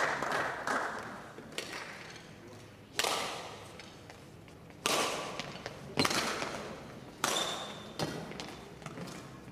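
Badminton rally: rackets striking the shuttlecock with sharp cracks every second or two, each ringing briefly in a large hall.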